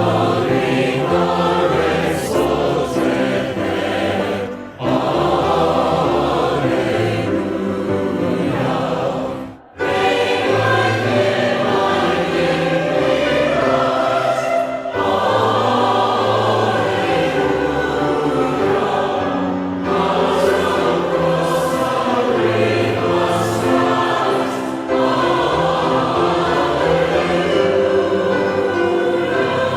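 Choir singing with music, in phrases that break off briefly about every five seconds.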